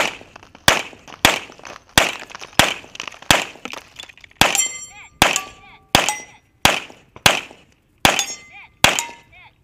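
Steady string of pistol shots, about one every two-thirds of a second. From about halfway through, several hits are followed by steel targets ringing.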